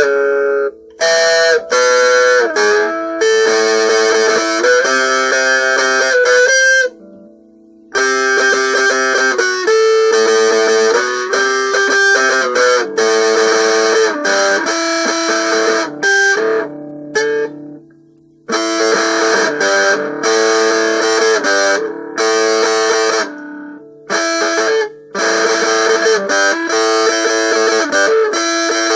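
Guitar played solo: plucked notes and chords in phrases, with a couple of short breaks, about seven and seventeen seconds in.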